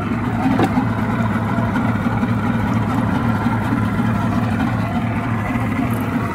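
Boston Whaler Outrage's outboard motor running steadily with the boat underway.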